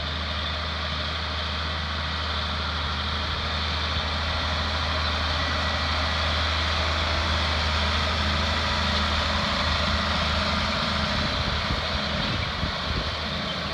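John Deere 4240 tractor's turbocharged six-cylinder diesel running steadily as it pulls a six-row corn planter past, growing louder as it nears and easing off slightly near the end. A couple of brief knocks come near the end.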